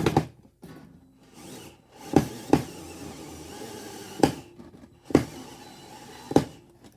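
Cordless screw gun whirring in short runs as a screw is driven in, broken by several sharp knocks and clacks as the tool and part are handled.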